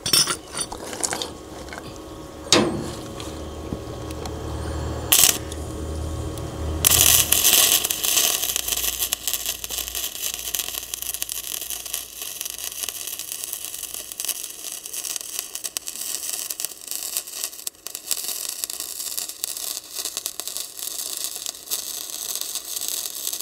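Electric arc welding: the arc strikes about seven seconds in and runs on with a steady sizzling crackle. A few sharp metal knocks come before it.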